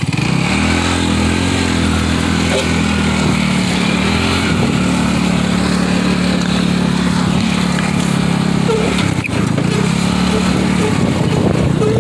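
Trailmaster XRS mini buggy's newly big-bore-kitted 150cc engine pulling the buggy away under throttle, rising in pitch over the first couple of seconds, then running at a steady high speed. About nine seconds in the throttle is lifted briefly, and the revs drop before climbing again.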